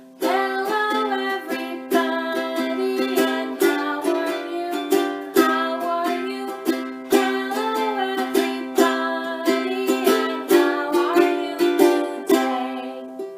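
Acoustic string instrument strummed in a steady rhythm, playing a children's hello song.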